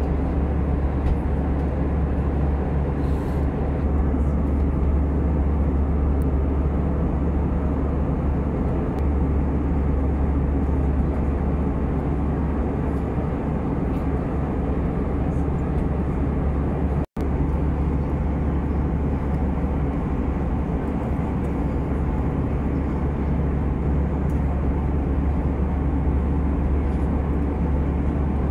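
Steady cabin noise of an Airbus A320 in cruise: a low engine drone under the rush of air along the fuselage, heard from inside the cabin. It cuts out for an instant about two-thirds of the way through.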